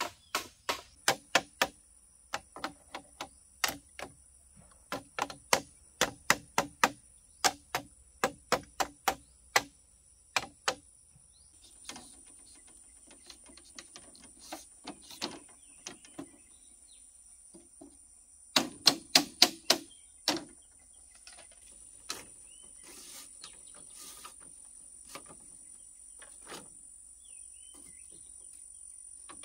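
Sharp, rapid knocks of bamboo pieces being struck and clattered while being worked, in runs of several a second through the first ten seconds. Then softer handling sounds, broken by a short run of about six loud knocks a little past the middle.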